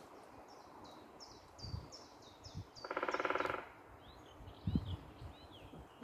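A woodpecker drumming on a tree: one short, very rapid roll lasting under a second about three seconds in, the loudest sound. Small birds sing around it, with a run of repeated high notes before the roll and a few varied chirps after it, and a few low thumps.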